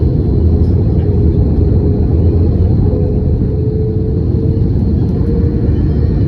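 Steady, loud, low rumble of an Airbus A320 in flight, heard inside the passenger cabin: the noise of the engines and the airflow over the fuselage.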